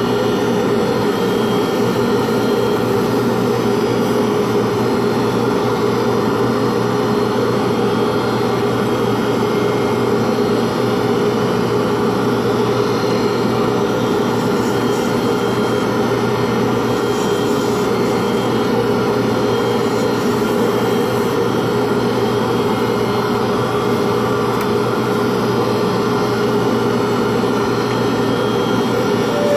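Pen-turning lathe running steadily, a constant whine with no change in speed.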